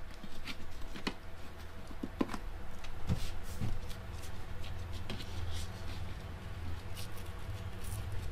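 Hands working a nylon ratchet strap and an aluminium angle bracket against a battery case: scattered small clicks, taps and rustles of the webbing over a steady low hum.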